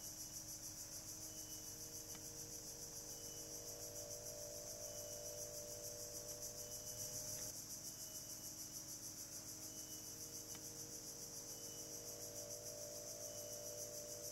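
Steady high-pitched chorus of insects trilling with a fast, even pulse, over a faint low hum.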